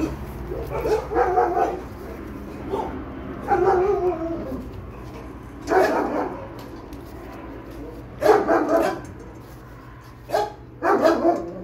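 Dogs in shelter kennels barking in short bouts every couple of seconds, some barks sliding down in pitch, over a steady low hum.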